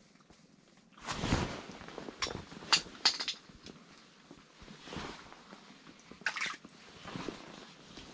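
A crucian carp being landed and handled: water splashes about a second in, followed by several sharp knocks and clatters and rustling handling noise.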